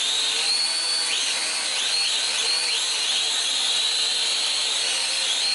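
Syma X5-clone quadcopter's four brushed motors and propellers running at full throttle while held down by hand: a steady high whine over propeller rush, its pitch dipping and recovering several times between about one and three seconds in.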